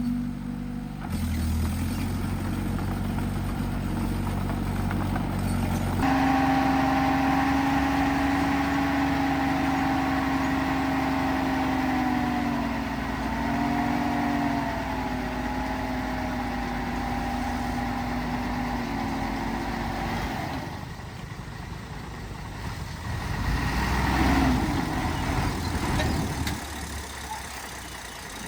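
Heavy diesel engine of earthmoving machinery running: a low rumble at first, then a strong steady hum from about six seconds in that dips in pitch a few times and drops away about twenty seconds in, with a rougher surge near the end.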